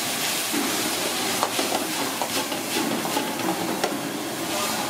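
Cooking utensil knocking and clinking against a pan, a run of short sharp knocks from about a second and a half in to nearly four seconds, over a steady hiss and a faint hum.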